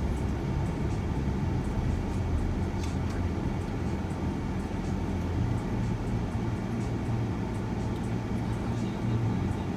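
Steady low road and engine rumble of a shuttle van driving, heard from inside the cabin.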